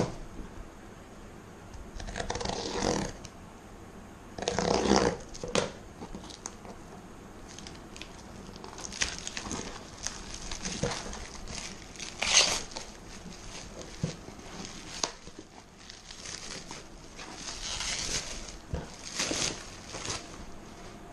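Parcel packaging being opened by hand: plastic and paper crinkling and tearing in irregular bursts, with pauses between.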